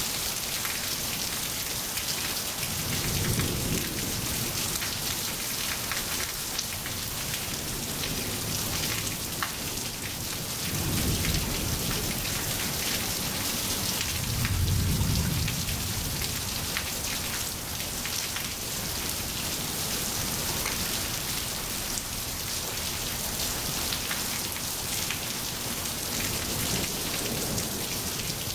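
Steady rain falling on wet pavement, with three low rumbles of thunder: one a few seconds in and two more around the middle.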